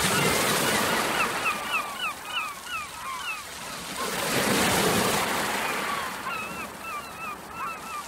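Sea surf washing over rocks, one wave surging loudest around the middle. A flock of birds keeps up short, quick calls over it, falling away before the surge and coming back near the end.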